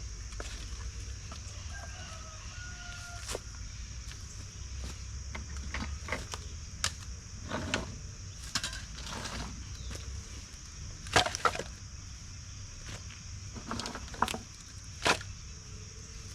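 Steady high chirring of night insects, with a faint rooster crow about two seconds in. Several sharp knocks and rustles come in the second half, the loudest about eleven seconds in.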